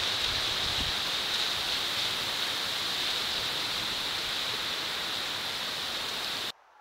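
Steady hiss with a higher-pitched band running through it, cutting off suddenly near the end.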